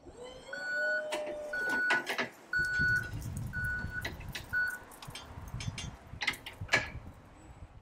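Yale forklift's warning alarm beeping about once a second, stopping about two-thirds of the way through, over the forklift's low running rumble, which comes in after a couple of seconds. Several sharp knocks and clatters are mixed in, the loudest near the end.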